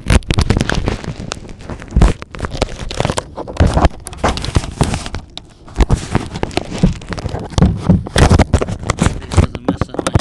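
Clear packing tape crackling, crinkling and rubbing right at the recording iPhone's microphone as it is pressed and wrapped around the phone to strap it to the RC plane. It comes as an irregular string of loud scratchy crackles and scrapes.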